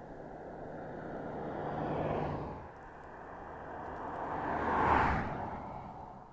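Two cars pass by on the highway, each swelling to a rush of tyre and engine noise and fading away, the second louder, about five seconds in.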